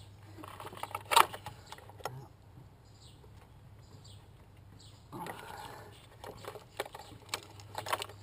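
Scattered clicks, knocks and rattles of hands and tools working on engine-bay parts, with a sharp knock about a second in and a burst of rattling past the middle, over a steady low hum.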